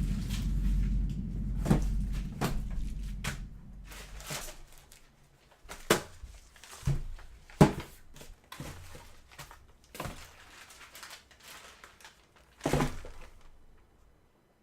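A low rumble fading away over the first few seconds, with a dozen or so scattered knocks and thuds, the loudest about halfway through.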